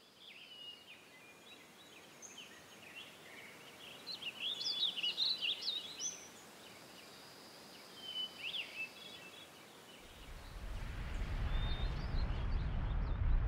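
Small birds chirping and twittering in woodland, busiest around the middle. From about ten seconds in, a low rumble swells in underneath.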